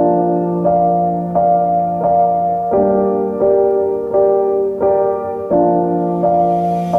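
Background piano music: sustained chords struck at an even, unhurried pace, about three every two seconds.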